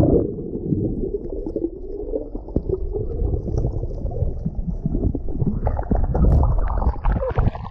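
Muffled gurgling and rumbling of moving water heard with the camera's microphone submerged, the higher sounds cut off as under water.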